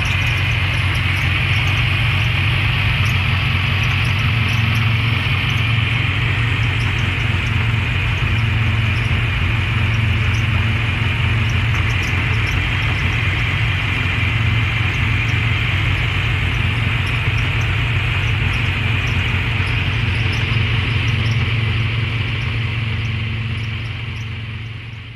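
Rover Mini's A-series engine running steadily, with a steady high-pitched noise above the engine note: the abnormal engine noise that the owner suspected came from the fan belt. The sound fades out at the very end.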